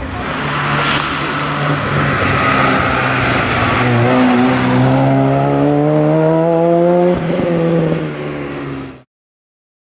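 Peugeot 106 S16 rally car's 1.6-litre 16-valve four-cylinder engine driven hard past the roadside, its note rising steadily under acceleration. There is a brief break about seven seconds in, then it runs on until it cuts off suddenly near the end.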